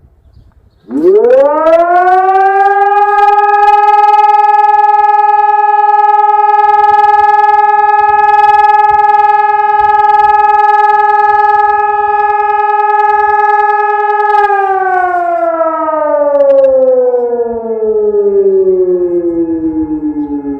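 Hörmann ECI-DT 600 civil-defence siren sounding its monthly test. About a second in it rises quickly to a loud, steady tone, holds it, and then slowly falls in pitch over the last six seconds as it winds down.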